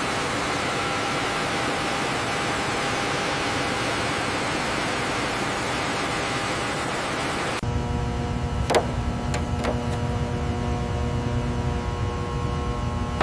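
A steady, even hiss, then an abrupt change about seven and a half seconds in to a low machine hum with a few sharp clicks.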